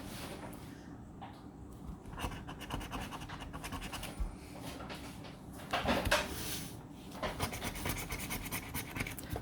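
A scratch-off lottery ticket being scratched: quick, short scraping strokes across the card's coating, faint, in two runs with a louder scrape between them.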